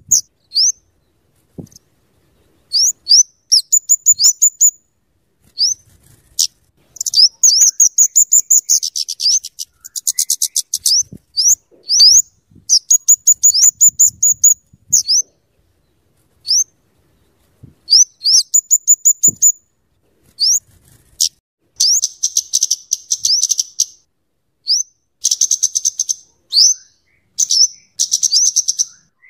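A kemade (cabe-cabean) flowerpecker calling: very high, sharp, quick notes strung into bursts, with rapid dry chattering runs about ten seconds in and again several times near the end, separated by short pauses.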